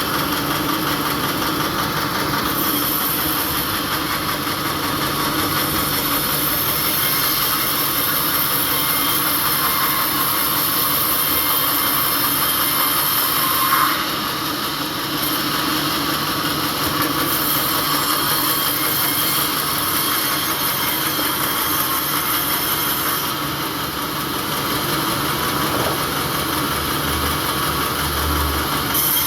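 Sawmill machinery running steadily: a mechanical drone with a high hiss that fades and returns a few times.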